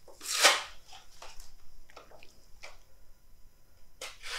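Quiet handling noises from a small diecast model car being held and turned: a soft rustle about half a second in, a few faint clicks and taps, and another rustle near the end.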